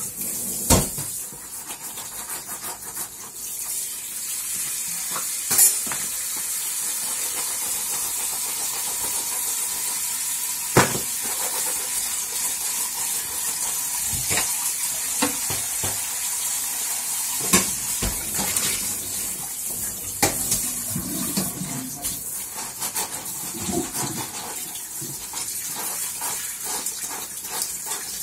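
Dishes being washed by hand in a stainless steel sink: a sponge scrubbing a sudsy dish, with sharp clinks and knocks of dishware against the sink every few seconds.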